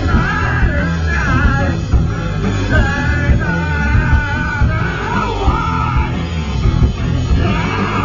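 Live rock band playing loud: electric guitar and drums with a singer's wavering, shouted vocal line over them, heard from within the crowd.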